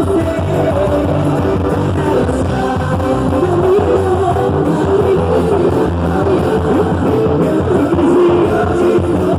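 Loud music with a singing voice, playing on steadily.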